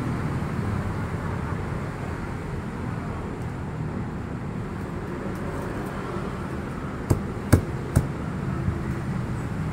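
Steady low rumble of background noise, with three sharp knocks in quick succession near the end, the middle one the loudest.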